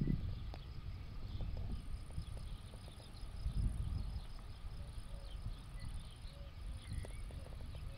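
Insects, likely crickets or cicadas, shrilling in a steady high chorus that sets in about two seconds in and breaks off briefly near the end, over a low uneven rumble.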